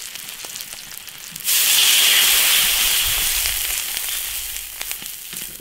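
Scallions, ginger and chilies frying gently in hot oil in an iron wok. About one and a half seconds in, liquid hits the hot oil and a loud sizzle starts suddenly, then slowly dies down.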